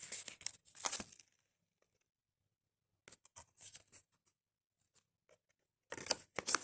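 Paper and card of a handmade lapbook being handled, rustling and crinkling in three short bursts: near the start, about three seconds in, and near the end.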